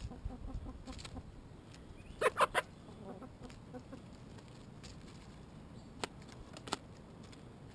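Domestic chickens clucking, with a quick run of about three loud clucks a little over two seconds in. Two sharp clicks follow near the end.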